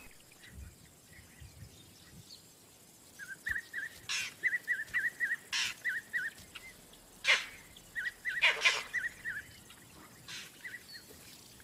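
Vervet monkey alarm calls, the sign of a predator nearby: from about three seconds in, runs of quick, high chirps, about five a second, broken by several short, harsh barks.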